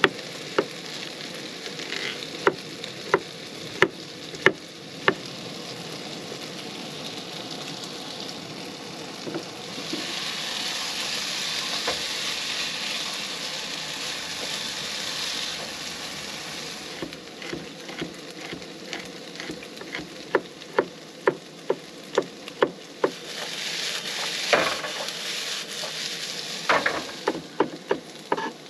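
Kitchen knife chopping on a wooden cutting board in runs of sharp taps, over food sizzling in a frying pan. The sizzle swells when the pan is stirred, about a third of the way in, swells again shortly before the end, and the chopping starts up again.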